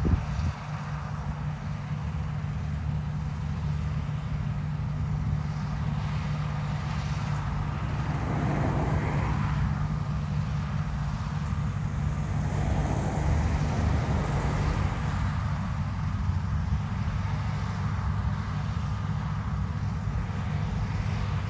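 Heavy farm machinery engine running steadily with a low hum. A louder rushing swell comes about eight seconds in and again around twelve to fifteen seconds.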